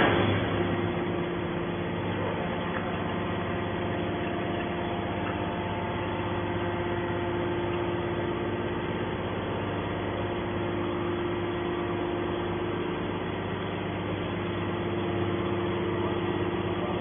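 YDF-63 hydraulic scrap metal baler's power unit running steadily: a continuous drone at an even level, with no strokes or impacts.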